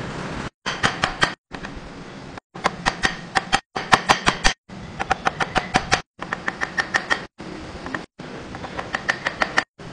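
Hammer driving a steel chisel into a wooden block in quick runs of blows, about five a second, each strike ringing sharply. The sound drops out briefly between short clips.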